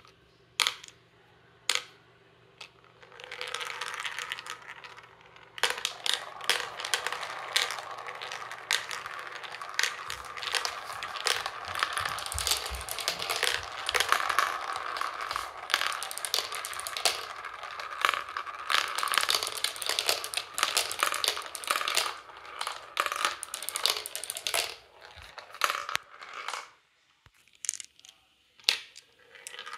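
Plastic marbles rolling and clattering through the plastic tubes, chutes and funnel bowls of a toy marble run. It opens with a few sharp clicks, builds to a dense rattle of clicks over a steady rolling sound that lasts about twenty seconds, then dies away to a few scattered clicks near the end.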